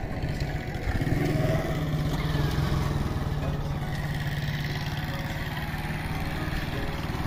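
Small motorcycle engine running with a steady low drone that comes in about a second in.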